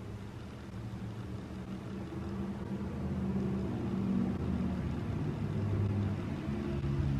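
A low, steady vehicle engine hum that slowly grows louder.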